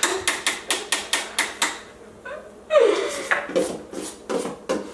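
A utensil clacking fast and evenly against a stainless steel mixing bowl as it is stirred, about six or seven clicks a second, stopping about two seconds in. Laughter follows.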